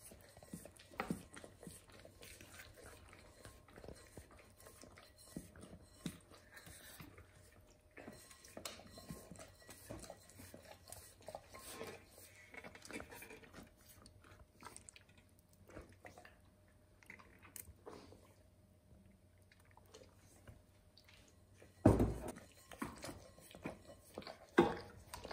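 Kitchen utensils working food: a spoon scraping wet canned fish out of a tin and a ladle dishing cooked chicken from a pot, heard as scattered soft clicks and scrapes, with two louder knocks against the pot near the end.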